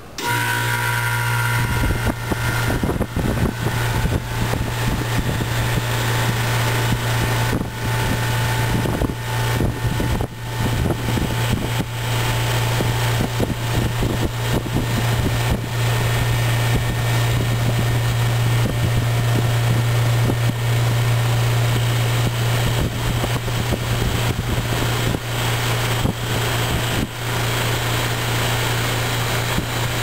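1988 Carrier "Round One" central air conditioner's outdoor condenser running: a steady low hum from the compressor under the rush of air from the top-mounted condenser fan. A faint higher tone fades out over the first ten seconds or so.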